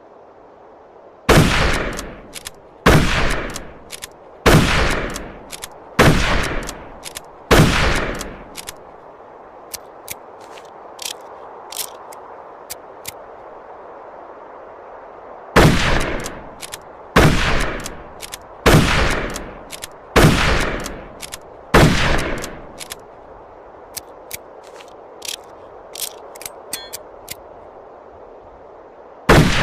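Mosin-Nagant M91/30 rifle shots: five shots about a second and a half apart, each ringing out briefly. Then a pause with faint light clicks, another string of five shots at the same pace, more faint clicks, and one more shot near the end.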